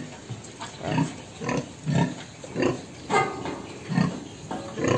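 Heavily pregnant sow in a farrowing crate, due to farrow, grunting: a run of short, low grunts, one or two a second.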